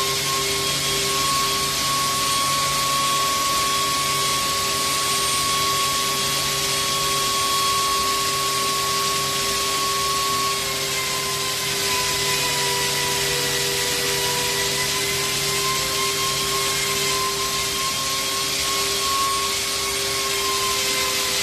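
AKM1325 CNC router running, its spindle giving a steady whine over a loud hiss of machining noise; a higher tone dips slightly about ten seconds in and then wavers.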